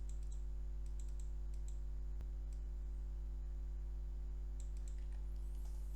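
Scattered computer clicks, a few at a time with pauses between, over a steady low electrical hum.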